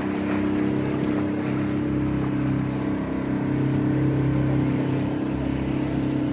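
Small tour boat's motor running steadily at cruising speed, a constant hum with water rushing along the hull.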